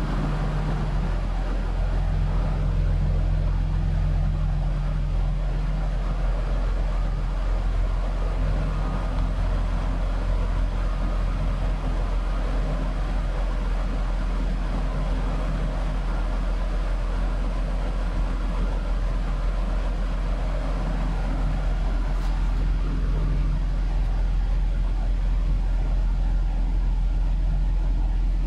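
2000 BMW Z3 2.3's 2.5-litre straight-six engine idling steadily after a major tune-up.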